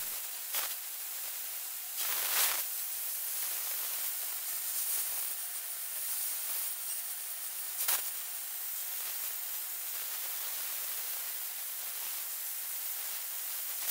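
DIMET cold-spray gun running, its compressed-air jet laying an aluminium powder coating onto a metal engine part: a steady hiss with brief louder spurts about two seconds in and near eight seconds.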